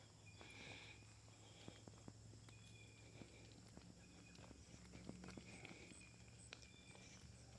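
Near silence: faint outdoor ambience with soft, scattered footstep clicks and a few faint short chirps.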